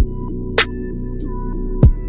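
Background electronic music with a steady beat: sharp percussion hits about every half second over sustained synth notes.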